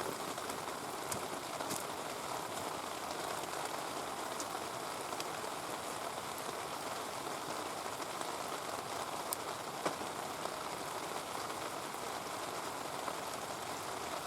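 Heavy rain falling steadily in a continuous hiss, with a few sharp clicks scattered through it, the loudest just before the ten-second mark.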